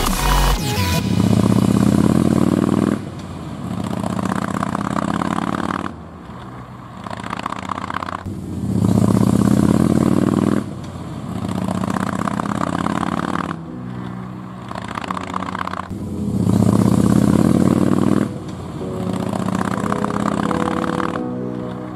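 Motorcycle engine under way, its pitch rising in three loud surges of acceleration about eight seconds apart, easing back to a quieter, steadier run between them.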